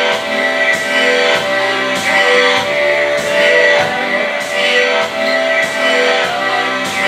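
Loud music with a steady beat and sustained melodic tones.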